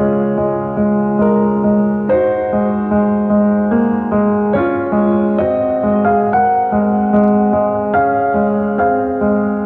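Solo piano playing a slow, gentle instrumental piece, with sustained notes and chords that change about every half second to a second.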